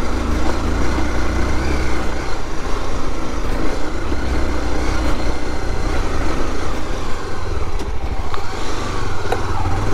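Dual-sport motorcycle engine running at an even pace while the bike rides a rough dirt track, with road and wind noise under a steady low rumble.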